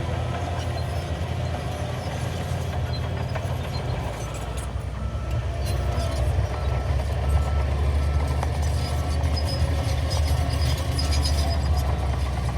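Shantui DH17C3 crawler bulldozer's diesel engine running steadily, with a light metallic clatter. It gets somewhat louder about six seconds in.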